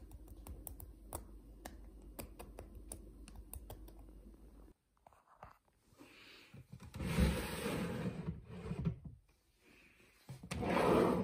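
Fine crackling clicks as fingers press and break a pie's crisp pastry crust. After a cut come louder scraping and knocking as a wooden TV cabinet is opened, the loudest near the end.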